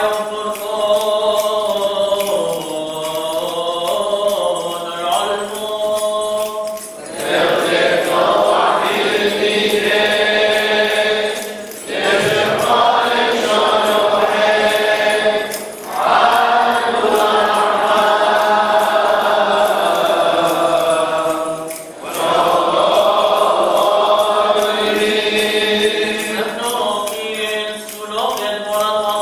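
Sung liturgical chant, voices drawing out a melody in long phrases with brief pauses between them, five phrases in all.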